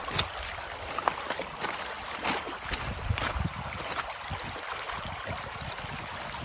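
Shallow river flowing over stones, with scattered splashes from a hooked trout thrashing at the surface as it is drawn into a landing net.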